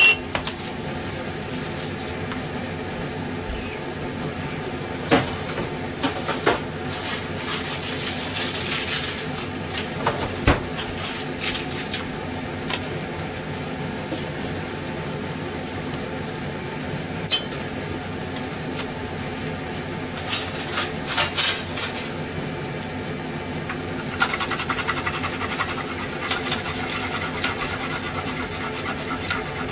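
Kitchenware clinking and clattering now and then, dishes, pots and utensils being handled, over a steady background hum. About five seconds before the end, water starts running from a tap.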